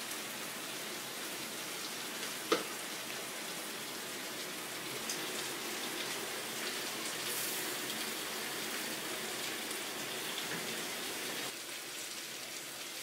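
Steady hiss of food sizzling in clay tajines over gas burners, with one sharp click about two and a half seconds in.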